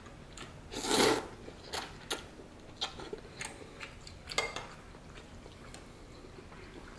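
A slurp of ramen noodles about a second in, the loudest sound here, followed by a few light clicks and clinks of chopsticks and a metal spoon against a ceramic bowl.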